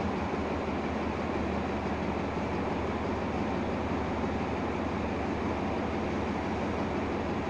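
Diesel locomotive standing at a platform with its engine idling, a steady low rumble that does not change.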